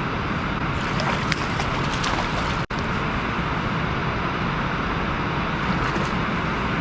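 Boat motor running with wind rushing over the microphone, a steady loud rush; the sound cuts out for an instant about two and a half seconds in.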